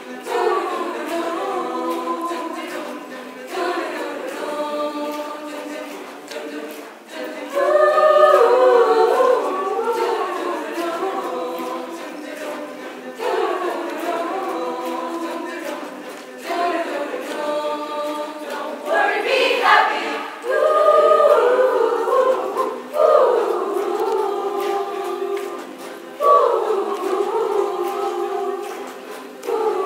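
Choir singing in harmony, in phrases of a few seconds with short breaks between.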